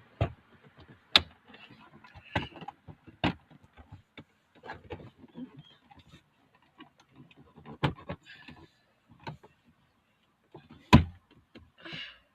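Dashboard of a 2008 Toyota Corolla being pulled out by hand: irregular clicks, knocks and scrapes as the panel is worked loose, with a loudest knock about eleven seconds in.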